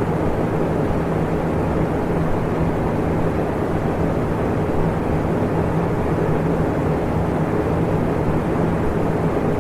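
Electric fan running steadily: an even rush of air with a low motor hum underneath.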